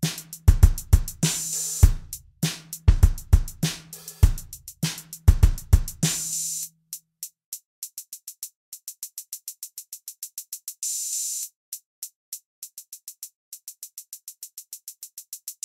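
Background electronic music with a drum-machine beat. About six and a half seconds in, the deep kick and bass drop out, leaving only fast, even high ticks, with a short hissing swell near eleven seconds; the fuller beat comes back near the end.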